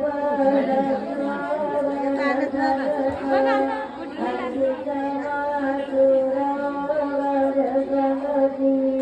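Singing in a chant-like melody over a steady, unbroken drone.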